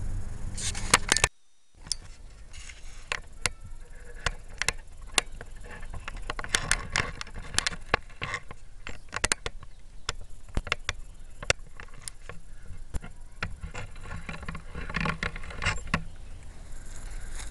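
Irregular sharp clicks and rustling, with a brief cut to silence about a second in.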